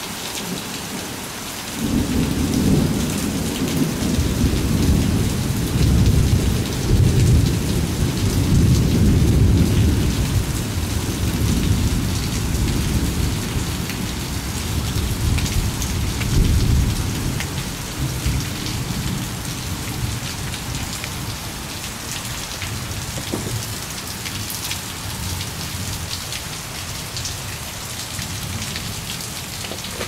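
Steady rain falling, with a long roll of thunder that begins about two seconds in, swells, and slowly fades away over some fifteen seconds.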